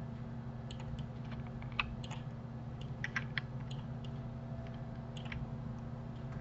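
Scattered sharp clicks of a computer mouse and keyboard: middle-button presses, scroll-wheel ticks and a key press, a few coming close together. A steady low electrical hum lies underneath.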